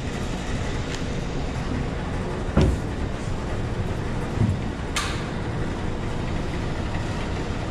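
Steady low rumble and hiss aboard a small fishing boat, with one knock about two and a half seconds in and a sharp click about five seconds in.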